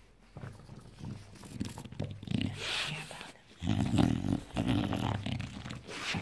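English bulldog making low grunting, growling noises in play, loudest in the second half.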